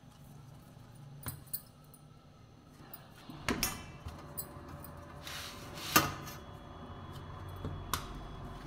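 Hands shaping wheat-dough balls and pressing them flat on a steel plate. A handful of sharp clinks come from glass bangles and a ring knocking against each other and the plate, the loudest about six seconds in.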